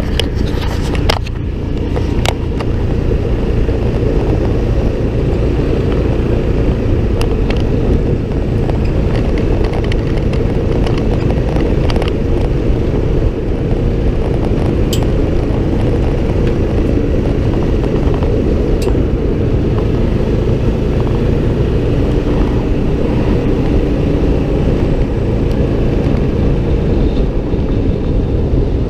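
Side-by-side utility vehicle engine running steadily while driving, with a few sharp rattles or knocks over the bumps.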